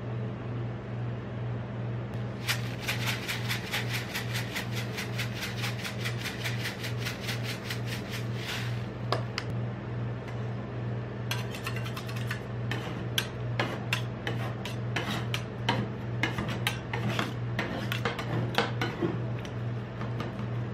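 Sprinkles shaken onto a rolled-ice-cream cold plate in a fast, even rattle. Then two steel spatulas chop and scrape the ice cream base against the steel plate in quick, irregular clacks, all over a steady low hum.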